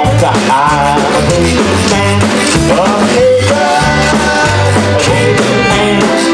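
A live Cajun band playing an upbeat song: squeezebox accordion, rubboard, electric bass, electric guitar and drum kit, with voices singing along.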